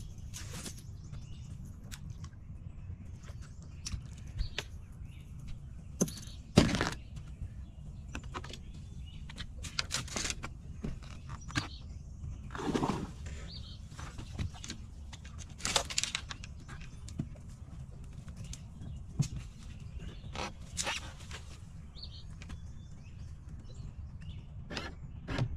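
Branches and leaves brushing, scraping and snapping against a bass boat's hull as it pushes through flooded brush: irregular cracks and rustles, the sharpest about a quarter of the way in, over a steady low rumble.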